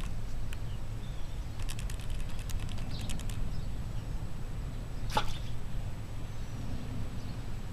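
Outdoor ambience: a steady low rumble with small birds chirping now and then. A quick run of sharp clicks comes about two seconds in, and one sharp sound with a short falling squeak, the loudest thing here, comes a little past halfway.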